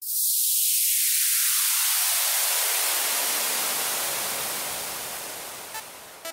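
Synthesized white-noise sweep opening an electronic music track: a hiss that starts thin and high and spreads downward to a deep, full rush over about four seconds, then slowly fades. Short electronic synth notes begin near the end.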